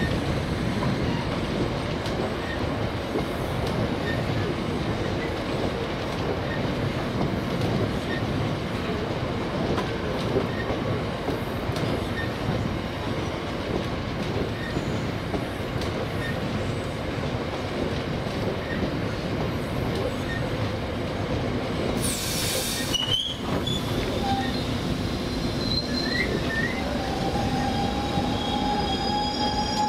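A train running through the station, a continuous rumble of wheels on rails. A short hiss comes about 22 seconds in, and high steady squealing tones set in over the last few seconds.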